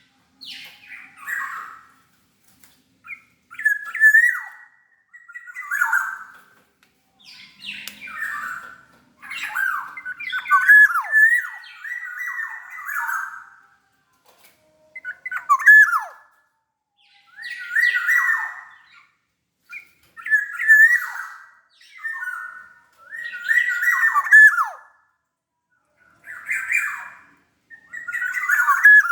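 Black-naped oriole (kepodang) calling: a series of short, harsh, sliding phrases about every two seconds, with brief pauses between them.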